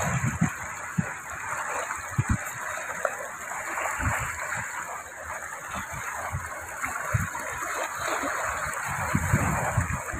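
Small sea waves washing and lapping against shoreline rocks: a steady rush of water with irregular low thumps.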